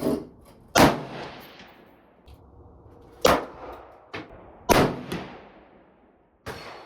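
Five gunshots at uneven intervals, each followed by a decaying echo. The second, third and fourth shots are the loudest.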